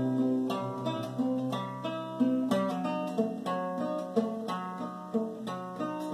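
Acoustic guitar playing an instrumental passage of plucked notes, about two a second.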